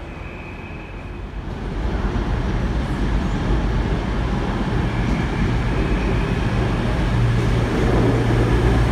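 CrossCountry Class 221 Voyager diesel multiple unit approaching and running alongside the platform. The drone of its underfloor diesel engines grows steadily louder from about a second and a half in.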